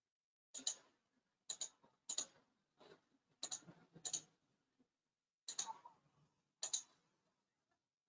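Computer mouse button clicks, about seven in a loose irregular series, each a quick press-and-release, faint, while connection lines are drawn in software.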